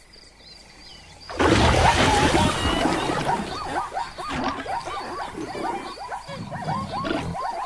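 Animal calls: a sudden loud outburst about a second and a half in, then many rapid, short chattering calls, several a second, over a faint high pulsing chirr.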